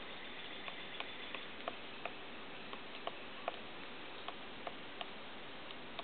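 Pileated woodpecker pecking at a small branch to dig out insects: irregular sharp taps of bill on wood, about two a second.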